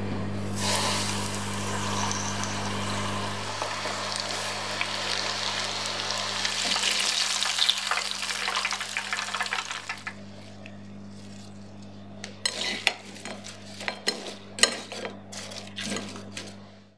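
Starch-coated chicken pieces deep-frying in hot oil at about 180°C: a dense, loud sizzle and crackle, over a steady low hum for the first few seconds. About ten seconds in the frying stops, and a run of sharp clicks and taps follows.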